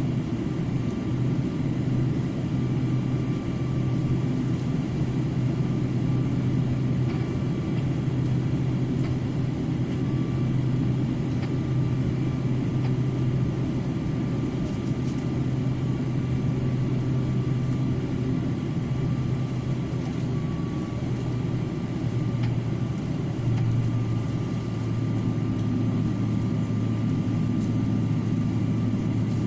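Steady low engine rumble with a thin, steady whine above it; the rumble's pitch shifts slightly about three-quarters of the way through.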